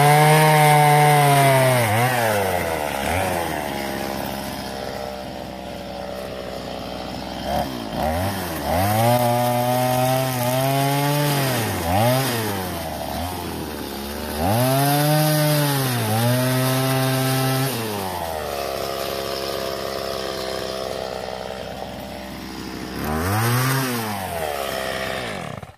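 Two-stroke chainsaw bucking logs into firewood: the engine revs up for each of several cuts, its pitch sagging a little under load, then drops back to idle between cuts. It cuts off suddenly at the very end.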